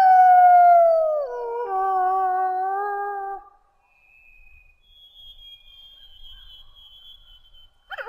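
Wolf howling: one long howl that starts high, slides down to a lower pitch about a second in and holds there until it stops at about three and a half seconds. A faint, thin high tone follows for a few seconds, and a new howl begins at the very end.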